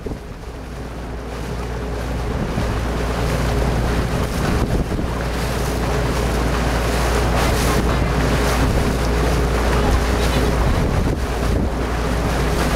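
Wind buffeting the microphone over choppy open water, with a steady motorboat engine hum underneath. It grows louder over the first few seconds, then holds steady.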